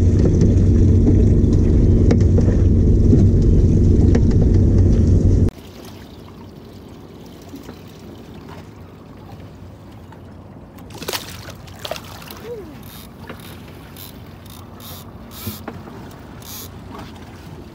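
Boat's outboard motor running steadily with a low hum, cutting off suddenly about five seconds in. A much quieter stretch follows, with scattered clicks and knocks.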